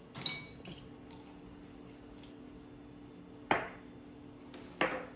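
A light clink, then two sharper knocks a little over a second apart, as small kitchen utensils are handled and set down on the table, over a steady low hum.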